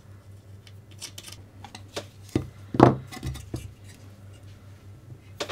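Small plastic and metal RC car kit parts clicking and tapping against each other and the chassis as they are fitted by hand during assembly, with a louder knock a little before three seconds in.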